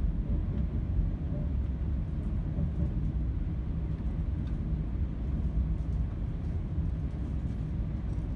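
Steady low rumble of a passenger train running on the rails, heard from inside the carriage.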